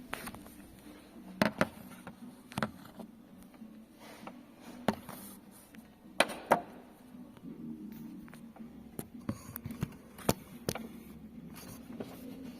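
Irregular sharp clicks and knocks of hand tools and metal engine parts being handled during timing-chain work, about a dozen scattered through, over a faint steady hum.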